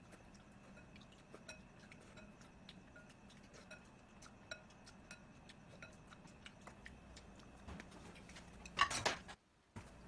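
Wooden chopsticks clicking and tapping against a glass bowl while eating ramen, many light clicks throughout. About nine seconds in comes a louder rush of noise that cuts off suddenly.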